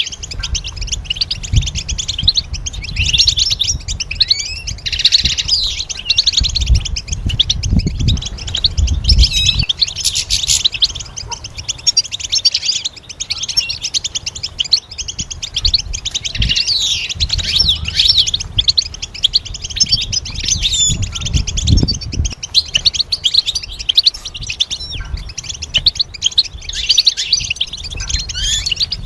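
European goldfinch singing: a fast, unbroken run of high twittering chirps and trills, with an intermittent low rumble underneath that swells about eight and twenty-two seconds in.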